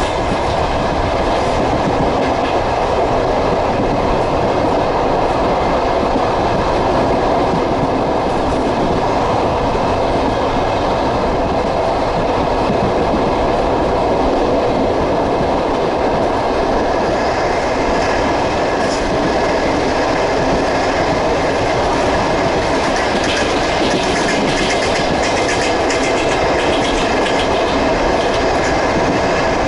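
Passenger train running along the track, heard from aboard: a steady rumble with the clickety-clack of the wheels over the rail joints, the clicks sharper in the second half.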